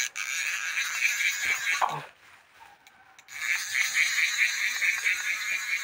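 Spinning fishing reel being cranked to wind in line, a regular whirring tick about four times a second. The cranking stops for about a second near the middle, then starts again.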